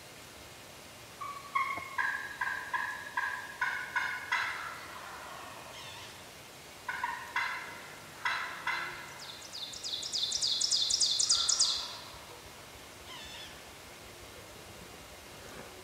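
Wild turkey yelping: a run of about eight yelps, then after a pause four more. About two seconds of high, rapid trill follow before it goes quiet.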